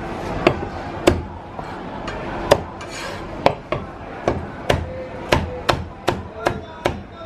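Cleaver chopping roast meat on a wooden chopping block: sharp knocks, a few spaced out at first, then a quicker run of about two or three chops a second.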